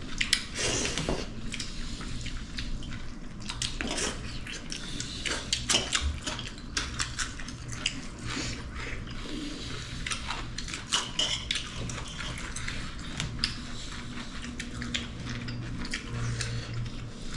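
Dishes and utensils clinking and scraping while people eat a meal, as many small, irregular clicks throughout.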